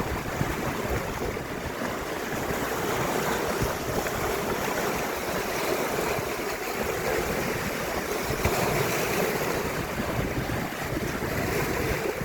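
Baltic Sea waves washing in steadily, with wind buffeting the microphone.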